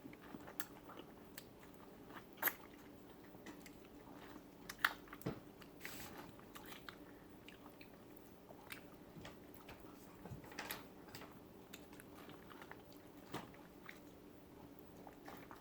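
Close-miked chewing and biting of a person eating, with scattered wet mouth clicks and smacks over a faint steady hum.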